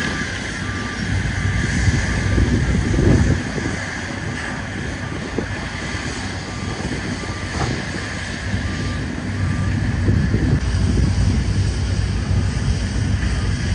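A vehicle's backup alarm beeps at a steady pace, a thin high tone, over a loud low rumble and wind noise on the microphone. The beeping stops about nine seconds in, and the rumble carries on.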